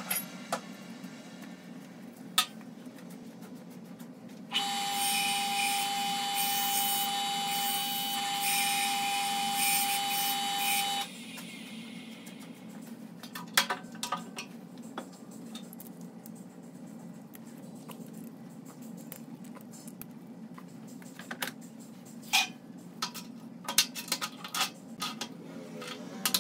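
A low steady hum throughout. About four seconds in, a louder mechanical whine with a steady pitch starts; it cuts off abruptly about six seconds later. Then come scattered metal clicks and knocks as a wood lathe's tailstock and drill chuck are handled and set.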